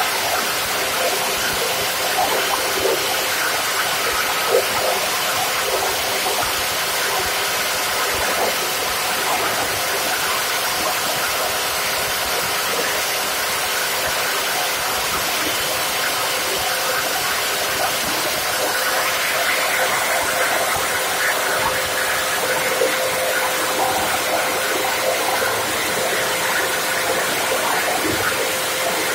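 PET bottle grinder running with a steady hiss and whine, and scattered crackles as plastic bottles are fed in and chopped by its blades. About two-thirds of the way through, the sound grows a little brighter.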